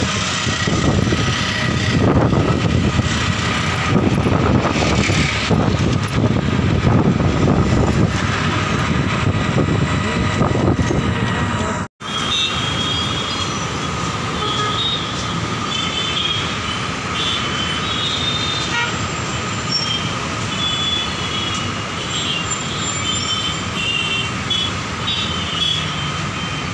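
Road and wind noise from an open rickshaw driving through traffic. After a cut about twelve seconds in, steady city traffic noise with many short car horn toots.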